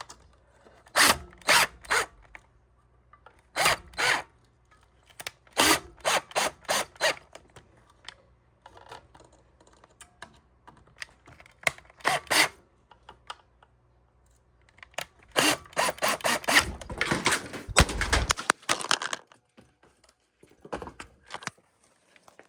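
Power drill run in short bursts while mounting a fire alarm horn strobe. Near the end comes a longer clatter with a heavy thump, typical of the device being dropped.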